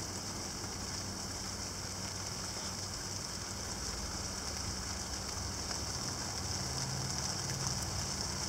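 Steady rain falling in large drops, with a low steady hum underneath.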